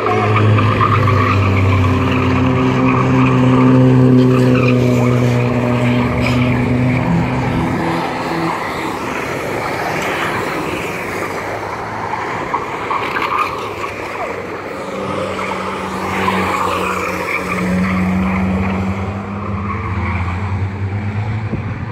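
Banger racing cars' engines running hard as they race round the oval, with tyres skidding and squealing on the tarmac. The engine sound is loudest at the start and again from about two-thirds of the way in, as cars pass close.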